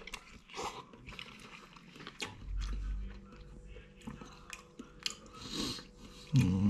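A person slurping and chewing instant cup noodles: wet mouth smacks and clicks with a couple of short slurps. Near the end comes a hummed 'mmm' that rises then falls.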